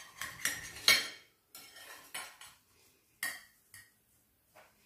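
Fork and knife cutting a potato frittata into slices, the blade scraping and clicking against the plate in a series of short strokes, the loudest about a second in.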